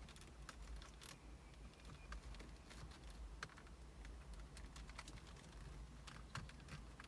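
Faint, irregular small clicks and taps from hands working small plastic and metal parts: wire spade connectors being pushed onto the terminals of a dual USB charger and fitted into a tight socket opening. A low steady hum lies underneath.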